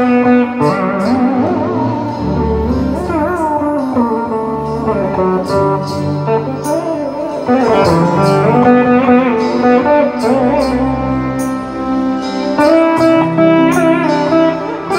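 Background instrumental music: a plucked-string melody whose notes bend in pitch, over a steady held drone, with light regular ticks.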